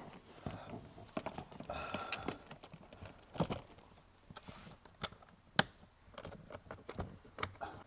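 Scattered clicks and handling noise of plastic car interior trim being fitted, with a few sharp snaps as it clips into place.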